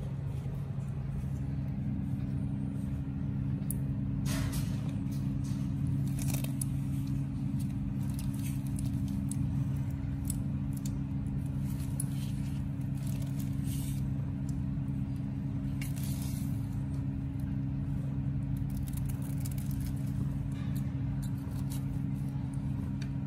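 Sphynx mother cat purring in a steady low drone while nursing her newborn kittens, with a few brief scratchy rustles over it.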